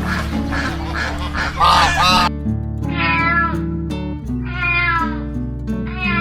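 A cat meowing, drawn-out calls about a second long each, twice in a row and a third starting near the end, over background music. Before the meows there is a shorter, rougher animal call.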